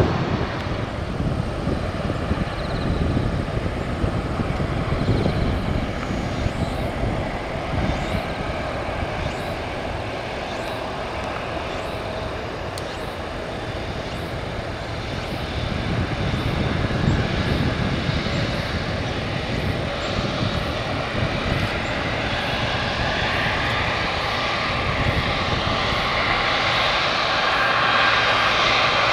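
Boeing 777 jet engines running as the airliner taxis, a steady rumble and hiss. It grows louder, with a rising whine, over the last several seconds.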